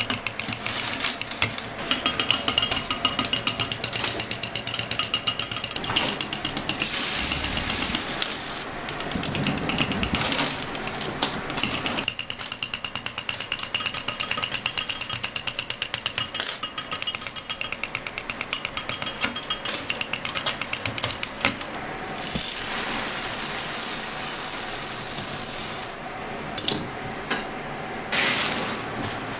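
Candy-cutting machine chopping thin striped hard-candy rods into small pieces: a rapid, dense clatter of blade strokes.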